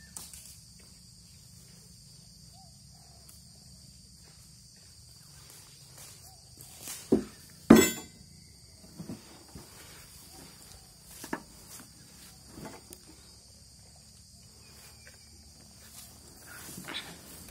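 Steady high-pitched drone of insects, with scattered footsteps and rustles in the undergrowth. A single sharp crack about halfway through is the loudest sound.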